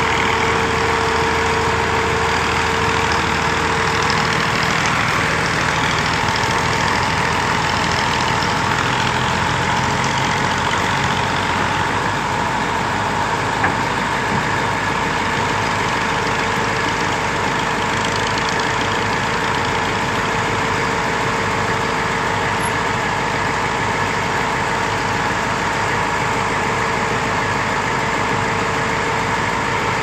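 Schwing truck-mounted concrete pump's diesel engine running steadily to drive the hydraulics while the outrigger legs are set, with a steady whine over the engine noise.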